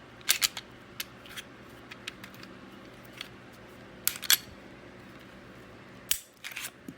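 Sharp metal clicks and clacks of a Smith & Wesson M&P 2.0 full-size pistol's slide being taken off the frame, coming in small clusters, the loudest a pair of clicks about four seconds in.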